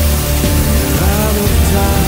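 Rock music with a strong, steady bass.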